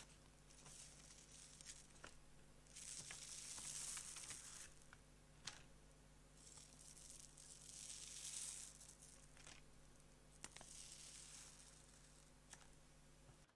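Baking paper being peeled away from the sides of a baked chocolate castella cake: a soft papery rustling and tearing in about four long pulls, with a few small crackles in between.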